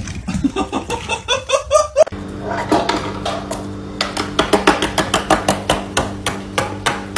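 Brief pitched animal calls, then a rainbow lorikeet playing on a wooden tabletop: quick, irregular knocks and taps from its beak and feet over a steady low hum.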